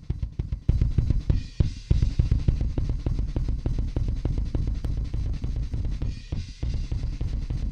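Recorded rock drum kit played back in the studio, with fast, dense kick drum hits, snare and cymbals, processed through a Lindell 7x-500 FET compressor. Short breaks in the beat come about a second and a half in and again near the end.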